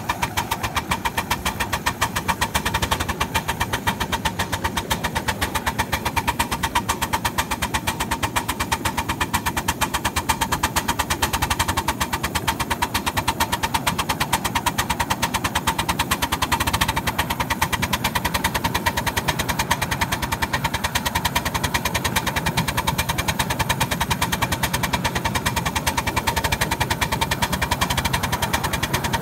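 Ride-on scale Pacific-type steam locomotive running steadily along the track, giving a rapid, even beat.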